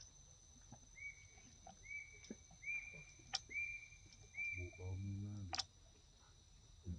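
Faint forest ambience: a steady high-pitched whine like insects, with a run of five short, identical animal calls about a second apart. A low hum lasts about a second near the middle, and there are a couple of sharp clicks.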